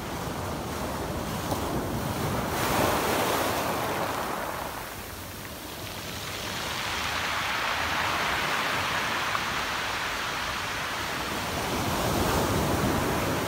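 Sea waves breaking and washing up a pebble beach, the surf swelling and easing every few seconds.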